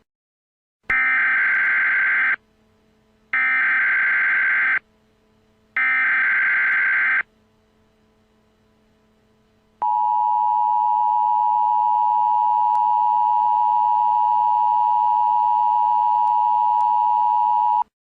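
Emergency Alert System header: three short bursts of warbling digital data tones, each about a second and a half long, then the EAS attention signal, a steady two-tone alarm held for about eight seconds. Together they signal the start of an emergency alert broadcast.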